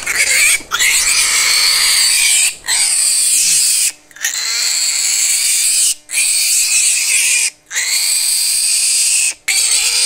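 A piglet squealing loudly while it is caught and picked up, in a string of long, shrill squeals of a second or two each with brief breaks between: the distress cries of a young pig being handled.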